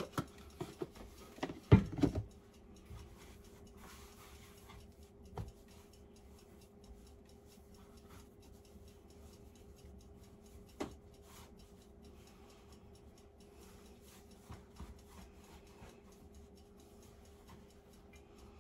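A few sharp knocks in the first two seconds, the loudest about two seconds in, as a plastic flour container and its lid are handled and set down on a wooden cutting board. Then soft rubbing as hands roll a log of dough on the floured board, with a faint steady hum and an occasional click.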